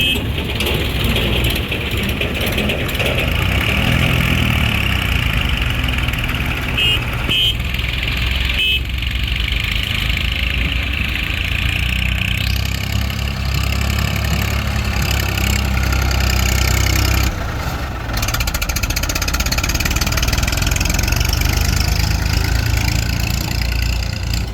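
Diesel engines of tractors and a JCB 3DX backhoe loader running steadily at a loading site, with three short high beeps about seven to nine seconds in.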